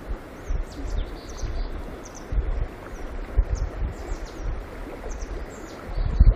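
Small birds giving short, high chirps again and again over the steady rush of a shallow stream, with irregular low buffeting on the microphone, heaviest near the end.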